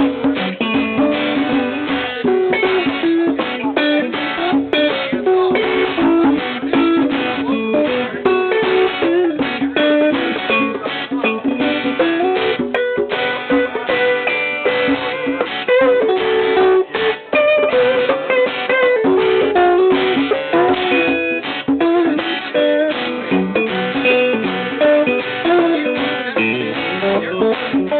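Band playing an instrumental break in a reggae song, a guitar picking a melody line over strummed guitar chords.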